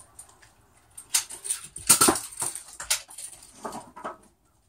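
A series of light knocks and clatters over about three seconds, the loudest about two seconds in.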